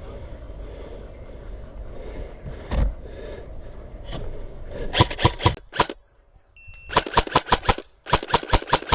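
Airsoft rifle firing three quick bursts of rapid shots, each shot a sharp crack, after a few seconds of rustling noise.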